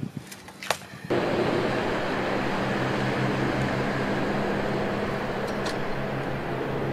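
A few light knocks, then about a second in a steady motor drone with a low hum under a wash of noise cuts in abruptly and holds.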